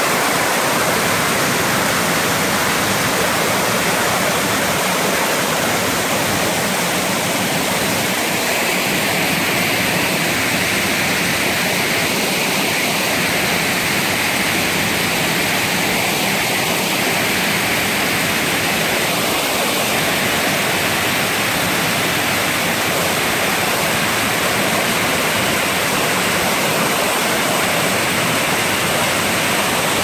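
Waterfall: white water pouring down a rock slope and churning over boulders, a loud, steady rush.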